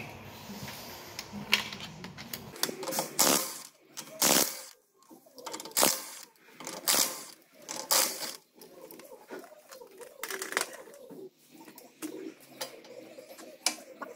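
Cordless impact wrench run in short bursts on the wheel-hub nuts while a wheel spacer is fitted: about six brief spins, a second or so apart, with small clatter of parts between.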